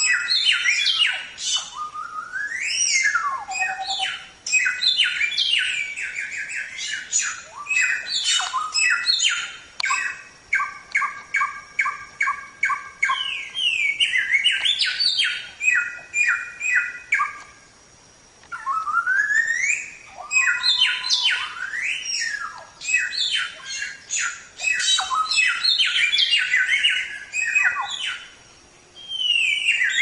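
Samyong songbird singing a fast, varied 'tembak' song of whistled notes, rising slurs and quick runs of repeated notes, with brief pauses between phrases.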